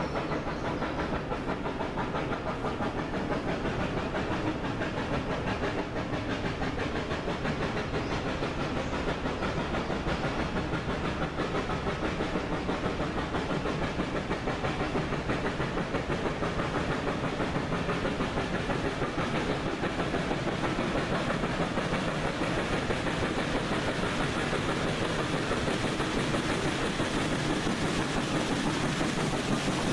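Western Maryland Scenic Railroad's 2-8-0 steam locomotive 734 working up a steep grade toward the listener, its exhaust chuffing in a fast steady beat with a hiss of steam. It grows slowly louder as it draws near.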